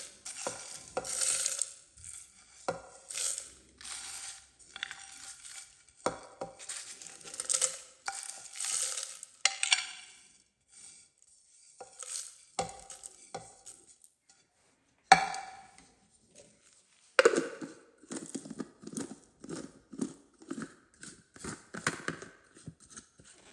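Dry-roasted whole spices (cumin seeds, cinnamon, black cardamom, bay leaves, dried red chillies) being pushed off a ceramic plate into a clear plastic grinder jar: seeds rattle and patter onto the plastic, with irregular clicks of the plate against the jar rim. A single sharp knock comes about 15 seconds in, and the rattling grows quicker and denser near the end.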